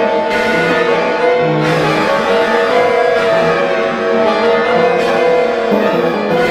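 A home-made music track made in BandLab, with sustained instrument chords that change every second or so.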